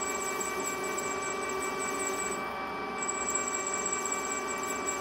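Metal lathe running with a steady whine of several high tones while a parting-off tool cuts through a spinning aluminium bar.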